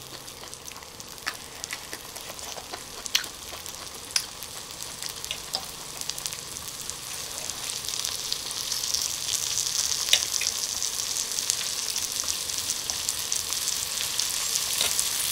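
Asparagus spears and melted cheese sizzling on a hot grill pan. The sizzle grows louder through the second half, with a few light clicks as a metal fork moves among the spears on the pan.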